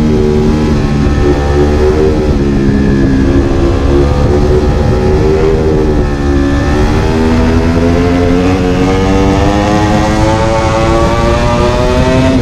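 Ducati Panigale V4 R's V4 engine heard on board in third gear. The revs sag slightly through a corner, then climb steadily over the last six seconds under hard acceleration.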